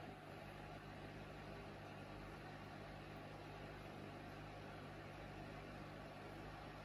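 Aquarium aeration running: a steady low hum with the even fizzing rush of a dense air-bubble curtain rising through the tank water.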